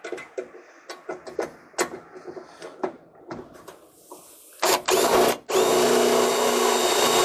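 Cordless drill driving hex-head self-tapping screws into a sheet-metal floor-pan plate. Scattered metal clicks and knocks as the screw is set, then the drill runs in a short burst about four and a half seconds in, pauses briefly, and runs again steadily.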